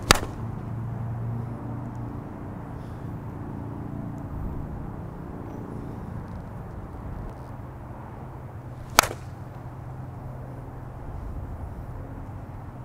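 Two sharp clacks of a slowpitch softball striking a 2018 Monsta Fallout bat, one at the very start and one about nine seconds later, over a low steady hum.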